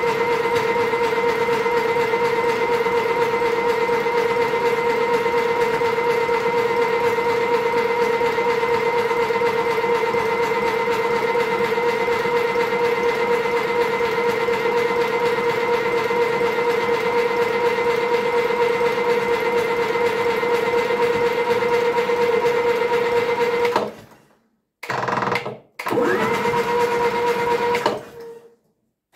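David Brown 25D diesel tractor engine being spun over by its electric starter motor with the decompressor open, a steady whine that clears out whatever is in the combustion chambers of the flooded engine. It stops about six seconds before the end, then gives two short bursts of cranking.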